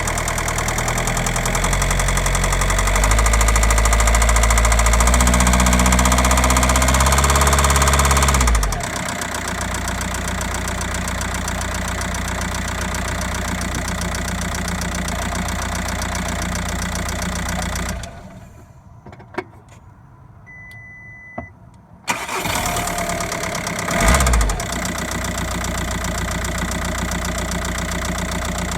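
Audi A3 8P's 1.9 TDI four-cylinder diesel (BLS, 105 hp) revving and held at raised revs, then dropping back to a steady idle. About halfway through, the engine is switched off: a few seconds of quiet follow, with clicks and a short beep. It is then restarted, blips its revs briefly and settles back to idle.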